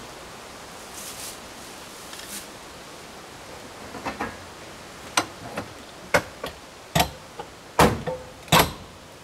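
A run of sharp knocks and clacks from the hard parts of a pop-up camper being handled while it is packed up for folding. They start about halfway through and come more often toward the end, and the last two are the loudest.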